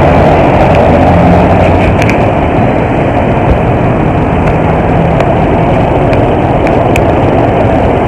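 Motorcycle engine running at low speed in slow traffic, a steady loud rumble and rushing noise heard from the seat of the motorcycle taxi, with other vehicles' engines around it.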